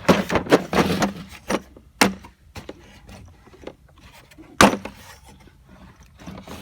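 Tools being handled and moved about in a tool cart: a quick run of rattling clicks and knocks, then a few single sharp knocks, the loudest about four and a half seconds in.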